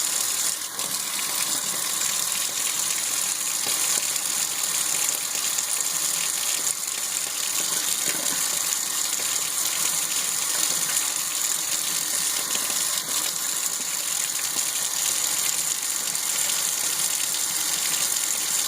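Faucet running, water gushing steadily into a sink: the line is being flushed after a water-heater back flush, to clear air and dissolved scale.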